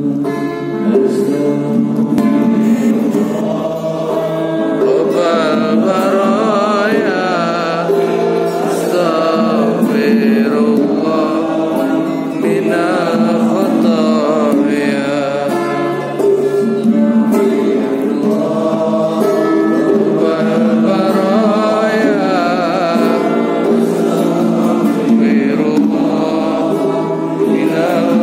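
Men singing a devotional chant, with a lead voice through a microphone and others singing along in long, wavering melodic lines that carry on without a break.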